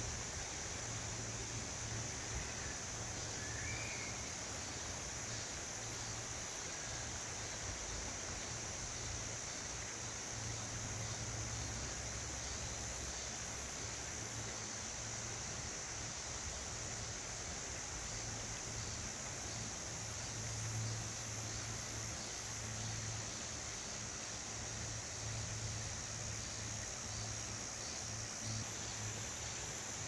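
Steady high-pitched chorus of cicadas over the broad rushing of a mountain stream, with a low hum that swells and fades now and then.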